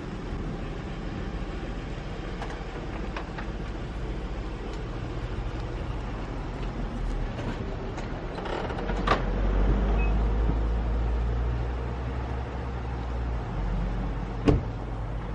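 An engine running steadily with a low hum that gets louder in the middle for a few seconds, with a few light clicks and a sharp knock near the end.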